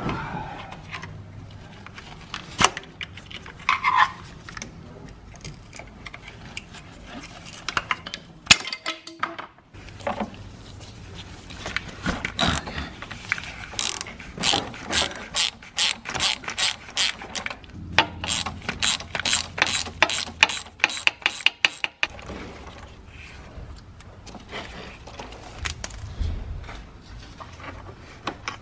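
Hand ratchet wrench clicking in quick, even runs as bolts are undone, with scattered metallic clinks of tools and connectors; a faint steady low hum runs underneath.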